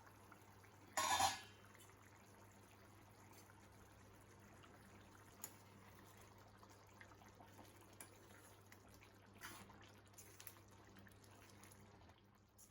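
A short splash of water about a second in, then a few faint clicks and taps over a steady low hum.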